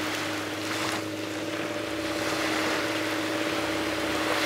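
Small waves washing up onto a sandy beach, swelling and easing, over a steady low hum.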